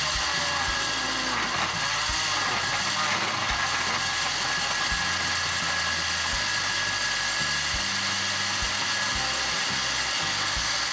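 Electric countertop blender running steadily, puréeing frozen melon chunks with sugar and cold water into a smooth drink.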